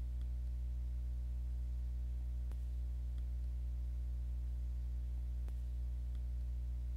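Steady low-pitched hum with two faint clicks about three seconds apart, cutting off suddenly at the end.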